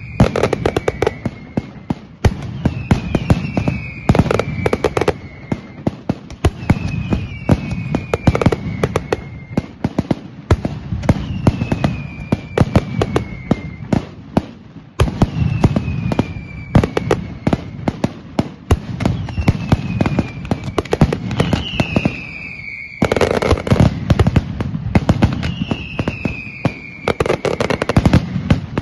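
A Hermanos Caballer mascletà going off: a dense, unbroken run of firecracker and aerial bangs, surging and easing in waves. Over the cracking, whistling fireworks give a falling whistle roughly every two seconds.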